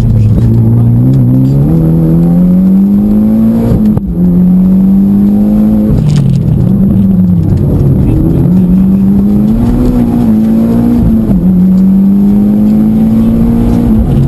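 Mitsubishi Lancer Evolution X rally car's turbocharged 2.0-litre four-cylinder engine heard from inside the cabin under hard acceleration, its pitch climbing through each gear and dropping at each gear change several times over.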